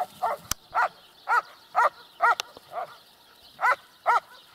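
A dog barking in a quick series of short barks, about two a second, with a brief pause about three seconds in. There is a single sharp click about half a second in.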